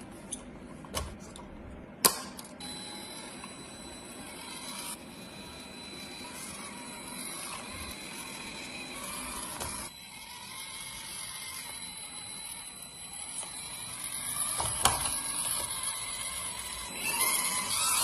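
Small electric motor and gearbox of an FMS FCX24 Power Wagon RC crawler whirring with a thin steady whine, broken by sharp plastic clicks and knocks, the loudest about two seconds in. It gets louder again near the end.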